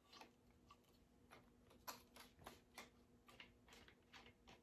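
Faint, irregular clicks and taps of a plastic ring light stand being handled and adjusted, about a dozen over a few seconds.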